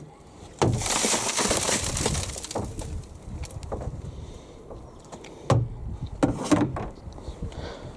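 Handling noise from a vacuum cleaner's emptied dust container and its plastic parts: a rustling rush about a second in, then quieter fumbling and several sharp plastic clicks and knocks a few seconds later.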